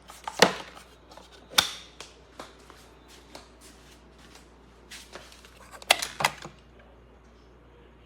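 Several sharp plastic clicks and knocks from a cordless wet-dry vacuum-mop being handled after it has powered off. The loudest comes about half a second in, another at about a second and a half, and a close pair follows near the end.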